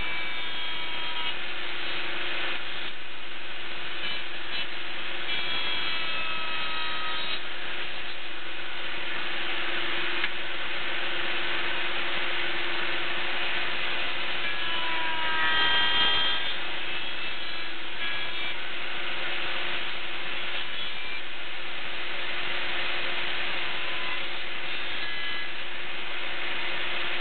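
A power tool running steadily as gussets are trimmed: an even cutting noise over a steady hum, with short high squeals at changing pitches coming and going.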